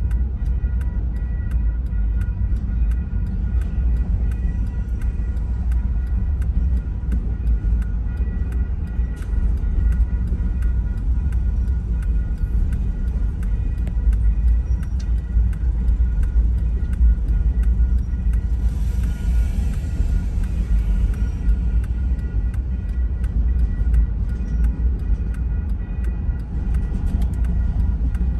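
Double-stack container freight train rolling past a grade crossing, a steady deep rumble heard from inside a stopped car, with a brief hiss about two-thirds of the way through.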